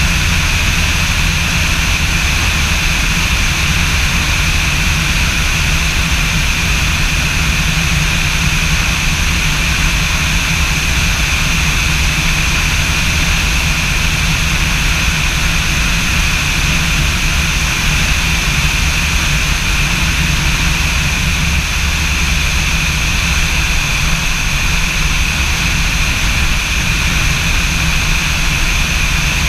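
Light aircraft's piston engine and propeller running steadily in cruise, heard from on board as an unchanging drone.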